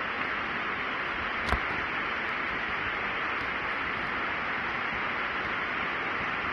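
Steady hiss at an even level, with one sharp click about a second and a half in.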